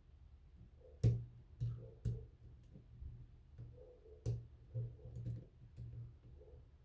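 Lock picking in a Smith & Locke closed-shackle padlock: irregular sharp clicks and taps of the pick and tension tool in the lock, loosely spaced, with the strongest around a second in and about four seconds in.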